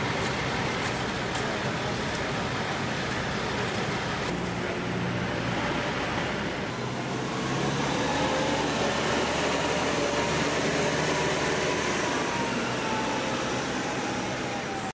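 Engine of a Caterpillar telehandler running steadily as it holds up a work platform, with a faint whine that slowly rises and falls, over continuous street traffic noise.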